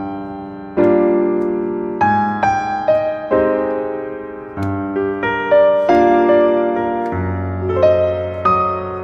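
Background piano music: a slow melody of notes and chords, each struck and left to fade.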